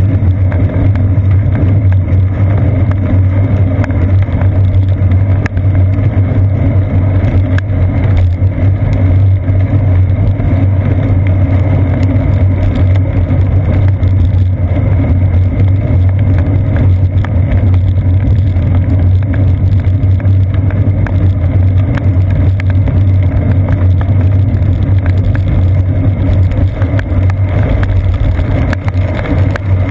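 Steady low rumble of wind and road vibration picked up by a seat-post-mounted GoPro Hero 2 in its housing while the bicycle rides along a wet paved path.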